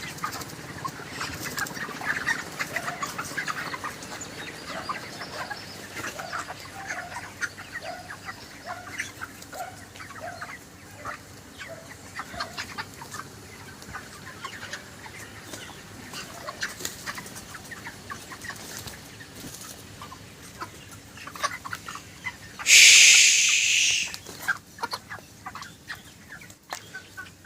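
A flock of 35-day-old broiler chickens clucking and calling, with a run of evenly spaced clucks in the first half. Near the end comes one loud, hissing burst lasting about a second.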